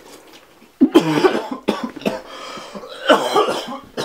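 A man coughing loudly in two fits, the first about a second in and the second near the end.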